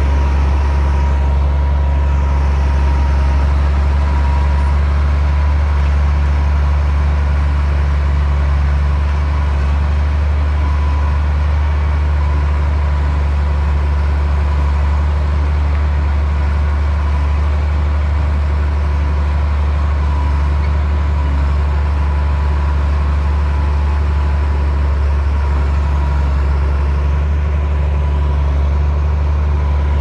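Komatsu D60P bulldozer's diesel engine running steadily, a heavy low drone with a thin steady whine above it.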